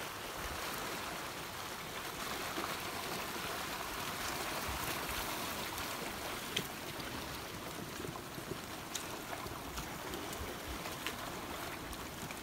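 Flash-flood debris flow: muddy water carrying branches and logs washes steadily over a dirt track, with a few faint sharp clicks.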